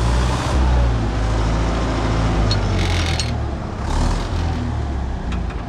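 Universal U650 tractor's diesel engine running steadily under load as it pulls a disc harrow through stubble, with the harrow's steel frame and discs rattling and clanking over the soil.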